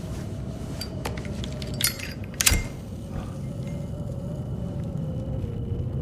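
Low, steady rumbling drone of horror-film sound design, with a few sharp clinks and rattles about one to two and a half seconds in, the loudest about two and a half seconds in.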